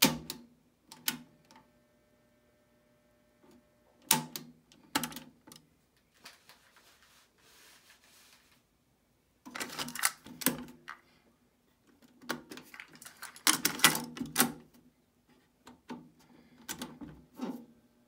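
Sherwood DD-1010C cassette deck's transport keys and cassette doors being worked: a string of sharp plastic clicks and clunks in several clusters as buttons are pressed and a door pops open.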